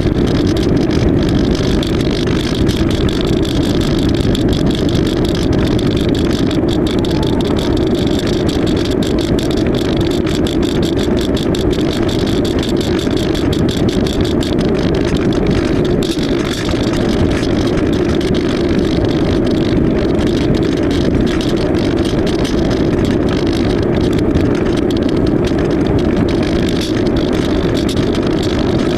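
AXN Floater-Jet RC plane's electric motor and propeller running steadily in flight, a continuous even drone with wind noise.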